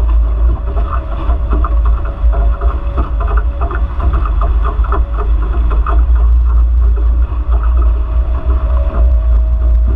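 Wind buffeting the microphone of a camera mounted on a Nacra Infusion F18 catamaran, over the rush and splash of water along the hulls as the boat sails fast, with a faint steady hum that grows near the end.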